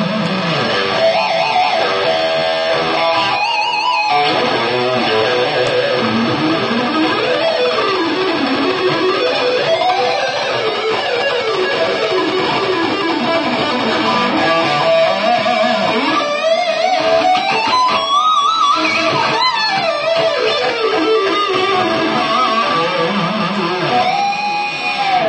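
Electric guitar played through a pedalboard of effects and an amplifier: a lead line of sustained notes with string bends and vibrato.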